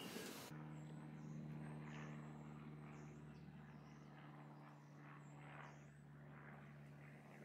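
Near silence: a faint, steady low hum with a few faint high chirps over it.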